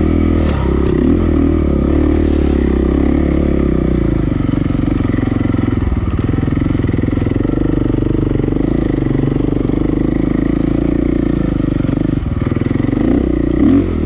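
KTM EXC enduro dirt bike's single-cylinder four-stroke engine, heard on board, running at low trail speed. The throttle opens and eases off every so often, with brief revs near the start and again near the end.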